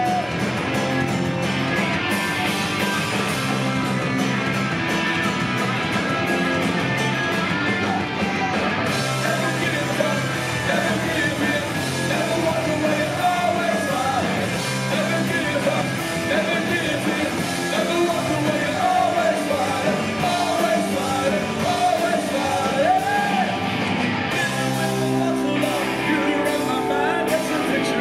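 Punk rock band playing live on electric guitars, bass and drums, with the lead singer's vocals most prominent from about ten seconds in.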